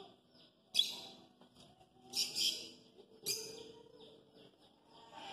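Cockatiel giving four short, harsh screeches: one about a second in, two close together a little after two seconds, and one a little after three seconds.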